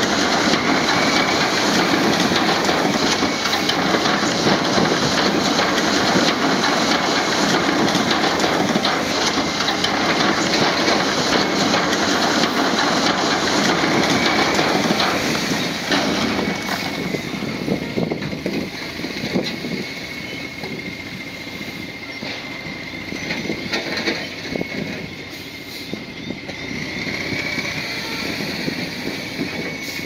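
Bulldozer working: its diesel engine running under a dense clatter of the steel tracks, with a thin high whine that wavers in pitch. The sound drops to a lower level about halfway through.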